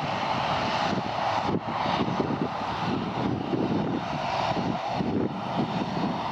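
Jet engines of a Boeing 757-200 running at low taxi power as the airliner rolls along the airfield: a steady, noisy engine sound with no sudden changes.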